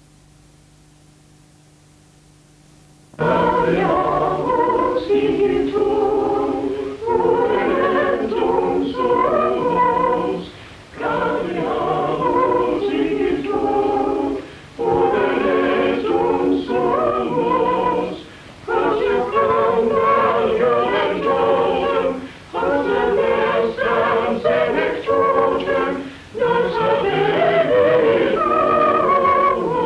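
A choir singing in phrases with brief pauses between them, starting about three seconds in after a faint steady hum.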